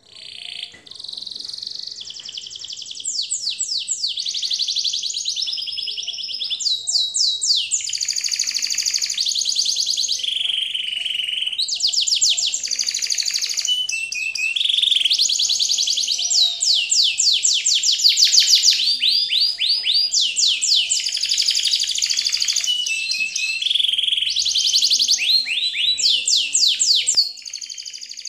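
A songbird singing continuously: high, rapid trills and runs of quickly repeated chirps, each run lasting a second or two before changing to a new note, mixed with held whistled tones.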